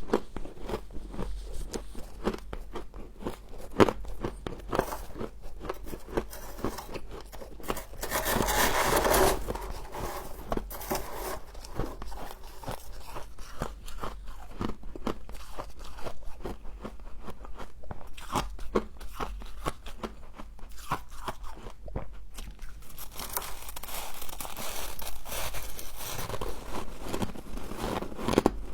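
Close-up biting and chewing of humidifier frost: a rapid, uneven run of crisp crunches, with a louder, denser burst of crunching about eight seconds in and another swell near the end.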